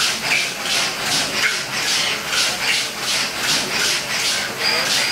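Stäubli SCARA robot arm running a fast pick-and-place cycle: a rhythmic rasping whir, about three pulses a second, as the arm swings back and forth. A thin high tone joins near the end.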